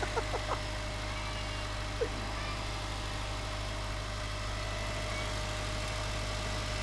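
Subaru Forester's flat-four boxer engine idling steadily, running just after an oil change while being checked for leaks.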